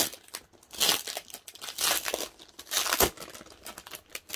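Large paper sheets rustling and crinkling as they are handled, in a few short bursts, the loudest about a second in and about three seconds in.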